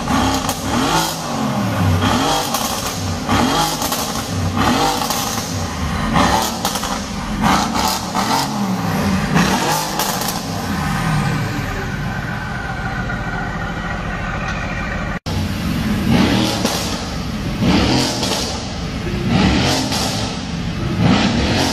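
Mercedes-AMG GT S twin-turbo V8, fitted with shielded downpipes and a fine tune, being revved repeatedly while stationary: quick blips that rise and fall about once a second, with sharp cracks between them. The revving eases to a steadier run for a few seconds past the middle, breaks off briefly, then the blips start again.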